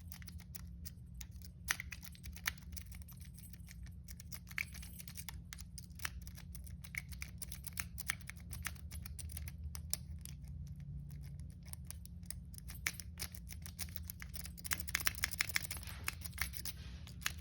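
A metal lock-picking rake scraping and clicking over the pins of a Brinks padlock under light tension, in a long run of small irregular clicks. The clicks come thicker and faster near the end, over a steady low hum.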